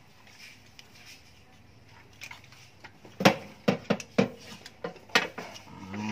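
Sharp plastic clicks and knocks, about eight in quick succession starting about halfway through, as the injector wiring harness and its connectors are unclipped and pulled free on a Toyota 1TR-FE engine.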